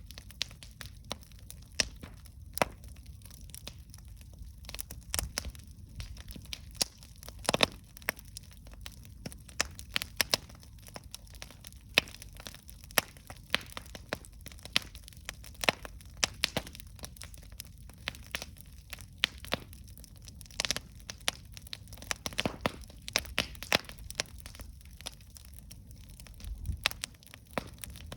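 Campfire crackling and popping: irregular sharp cracks, a few louder than the rest, over a low steady rumble of the burning fire.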